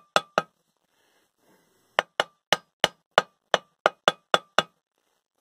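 Hammer strikes on metal, each with a short ring: three quick blows at the start, then after a pause a run of about ten taps at roughly four a second.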